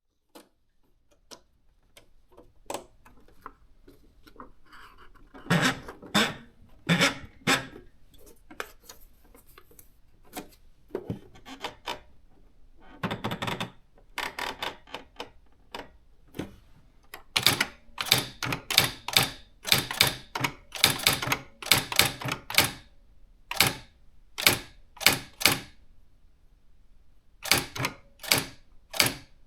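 Nakajima AX-80 electronic daisy-wheel typewriter printing as it is typed on: quick runs of sharp strikes in clusters, with short pauses between them.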